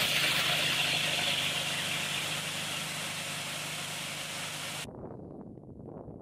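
Treated soybean seed pouring out of a seed tender's auger tube into a planter box: a steady rushing hiss over the even hum of the auger's engine. It cuts off suddenly about five seconds in, leaving a much fainter background.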